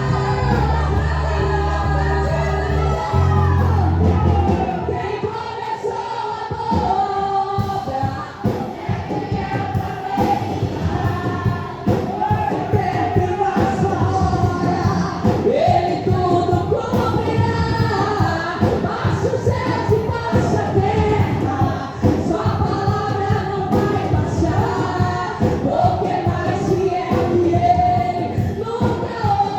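Live gospel praise music: voices singing over a band, held bass notes at first, then a steady driving beat from about four seconds in.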